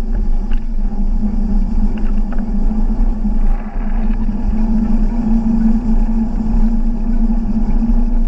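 A vehicle moving slowly along a paved road, its motor running with a steady hum over low rumble and wind on the microphone.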